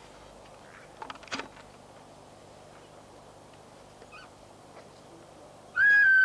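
One loud, high squeal near the end, held and then dipping slightly, lasting about half a second. Before it there is only a faint background hiss, with a few soft clicks about a second in.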